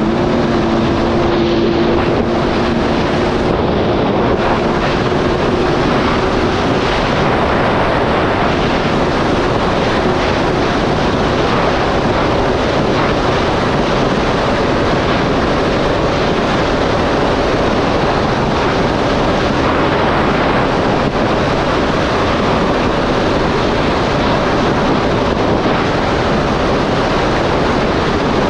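Supercharged Yamaha GP1800R SVHO jet ski running steadily at speed, its engine and pump buried in a dense rush of wind on the microphone and water noise.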